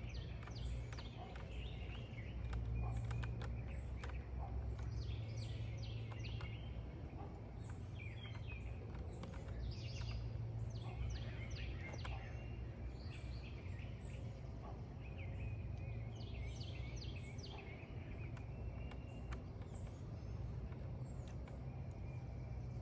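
Bird song: a bird repeats short runs of quick down-slurred high notes several times, over a steady low rumble, with scattered small clicks and rustles.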